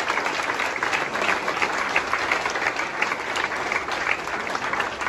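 A crowd of a few dozen people applauding, steadily throughout.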